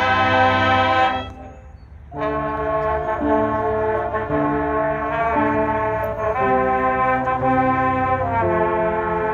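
High school marching band's brass section playing sustained chords. A loud chord cuts off about a second in, followed by a short pause, then the brass comes back in with chords that change about once a second over a moving bass line.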